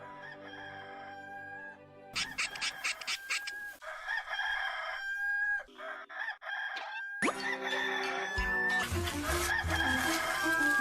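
Rooster crowing, the Hollywood Edge 'Rooster 2 Crow' stock sound effect, over background music.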